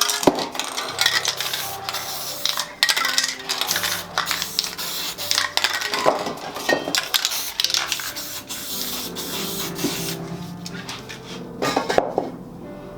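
Spray painting sounds: short hisses of aerosol spray cans and repeated metallic clinks and taps, over background music with sustained tones.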